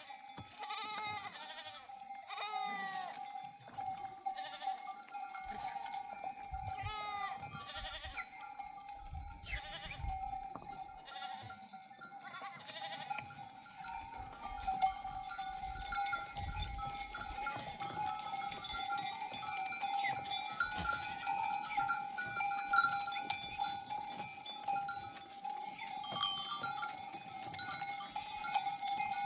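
Bells on a flock of sheep jangling continuously as the herd moves, with sheep bleating several times in the first few seconds.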